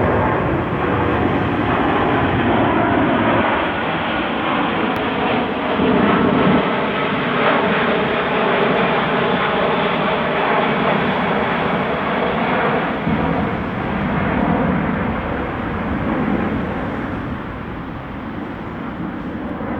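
A steady mechanical drone with several held tones that drift slightly in pitch, easing off a little near the end.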